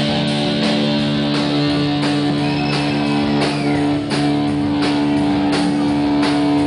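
Live rock band playing: electric guitar and bass holding sustained, ringing notes over repeated drum and cymbal hits.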